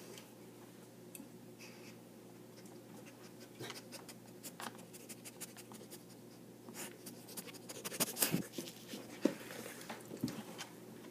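Scattered scratches and light taps close to an iPad's microphone as a dog and a kitten nose and paw at it, busiest about eight seconds in.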